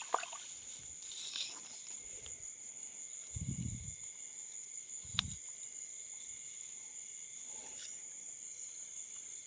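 Steady high-pitched chorus of night insects, crickets, with two dull low thumps a couple of seconds apart around the middle.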